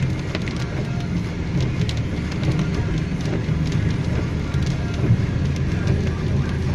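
Car cabin noise while driving on a rain-soaked road: a steady engine-and-tyre rumble with scattered ticks of raindrops hitting the windscreen, and music playing underneath.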